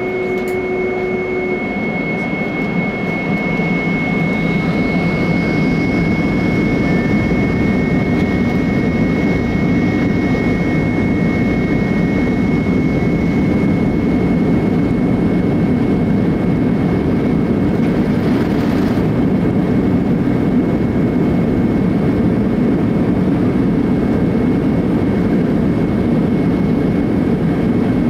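An airliner's jet engines spool up to takeoff power, heard from inside the cabin. A whine rises in pitch over the first few seconds as the rumble grows louder, then settles into a steady loud rumble with a thin high tone above it.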